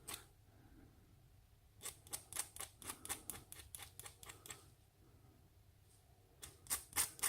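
Short, rapid scraping strokes on a small brass pin, rubbing off excess solder to smooth it: a run of about ten strokes, a pause, then a few more near the end.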